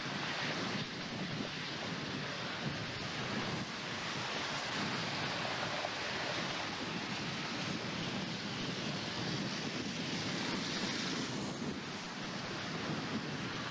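Strong wind blowing steadily, a continuous rushing noise with gusts hitting the microphone.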